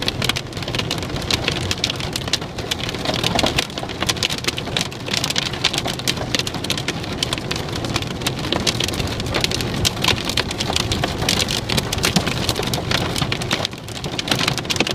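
Hailstones falling hard, a dense, continuous rattle of many small impacts.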